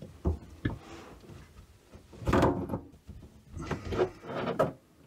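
Handling noise from a braided stainless steel supply hose being unscrewed by hand from a quarter-turn shutoff valve. A couple of light metal clicks come first, then several short scraping rustles as the fitting and hose are worked loose.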